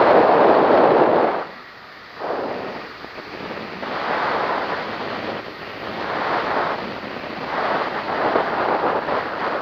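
Wind buffeting the microphone on a tandem paramotor in flight, coming in gusts: a loud one through the first second and a half, then weaker surges every couple of seconds.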